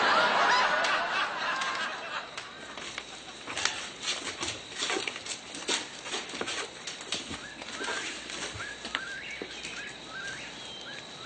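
Studio audience laughter fading over the first couple of seconds, then birds chirping with scattered light footsteps on a wooden porch.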